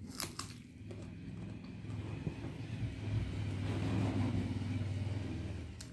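Low rumble of a passing motor vehicle that grows louder to a peak about two-thirds of the way through, then fades near the end. A sharp click comes just after the start.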